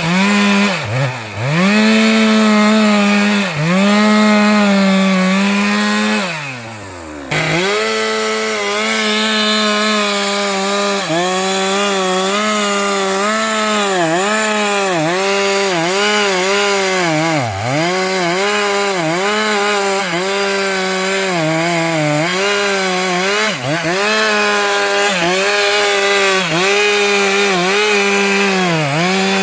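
Stihl MS 462 two-stroke chainsaw running at full throttle in a sengon trunk, its pitch dipping briefly again and again as the chain bites into the wood. About six seconds in, the throttle is let off and the engine drops toward idle, then revs straight back up and carries on cutting.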